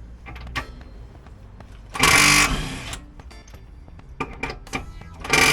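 Impact gun hammering on the wheel spacer bolts in two bursts, the first about a second long and the second shorter near the end, with small metallic clicks between them.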